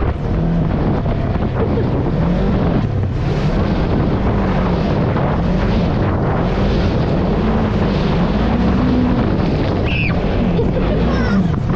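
Engine of a Polaris off-road vehicle under way, its pitch rising and falling again and again as the throttle is worked over the track, with wind buffeting the microphone.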